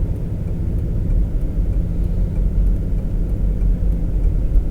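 Steady low rumble of a truck driving through snow, heard inside the cab: engine and road noise.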